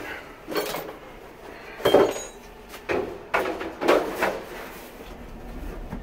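Clothes-dryer drum being handled and shifted in its cabinet during reassembly: a series of irregular knocks and clunks, about half a dozen, the loudest about two seconds in.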